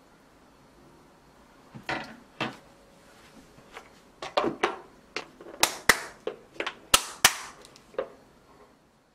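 Plastic snap-lock lid being fitted onto a glass food-storage container and its locking flaps snapped shut: a string of sharp plastic clicks and knocks, the loudest four coming in two pairs near the end.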